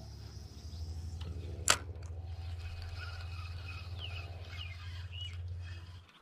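Birds chirping over a steady low hum that cuts off abruptly near the end, with one sharp click nearly two seconds in.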